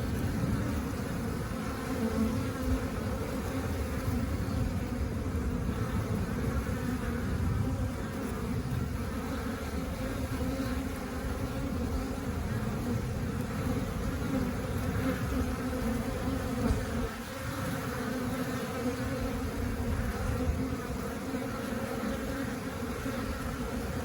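Honeybees buzzing in a steady, unbroken drone from many wings at once. The beekeeper takes it for the contented hum of bees busy foraging for nectar.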